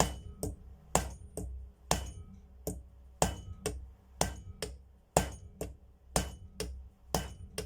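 A small hammer tapping a new bearing onto a vacuum cleaner motor's shaft: a steady run of sharp metallic knocks with a short ring, about two a second and often in close pairs.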